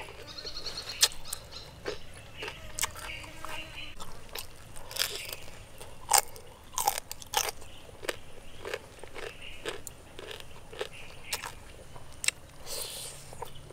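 Someone biting and chewing crispy fried fish, with irregular sharp crunches that come in quick clusters at times.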